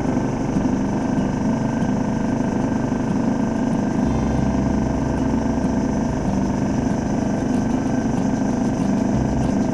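Small boat's outboard motor running steadily under way, a constant low drone.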